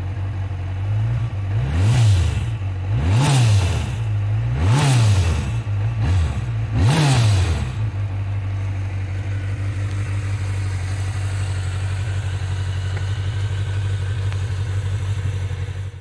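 1985 Suzuki GSX550E Katana's air-cooled inline-four idling with the bike standing still, its throttle blipped four times, about two, three, five and seven seconds in, each rev rising and falling quickly. It then settles back to a steady idle.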